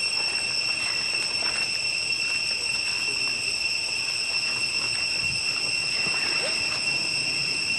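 Steady high-pitched insect drone with an even tone and overtones, with a faint short rising squeak about six and a half seconds in.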